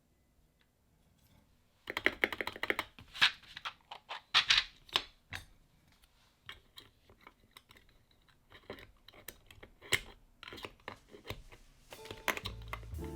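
Plastic keys on a Wooting 60HE keyboard clacking under the fingers: a quick flurry of keystrokes about two seconds in, then sparser single clicks. Music comes in near the end.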